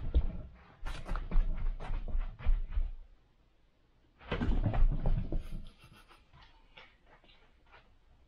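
A cat's paws thudding and scrabbling as it plays and runs: two spells of quick knocks and scuffles, the first about three seconds long and the second starting about four seconds in, then a few faint ticks.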